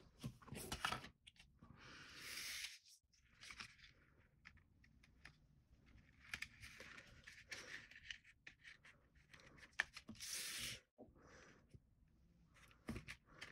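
Faint rustling and scraping of cardstock being slid and repositioned on a cutting mat, in several short scrapes.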